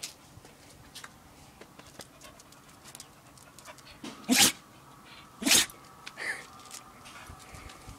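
A spaniel sneezing twice, about a second apart, midway through, then a softer third sneeze just after.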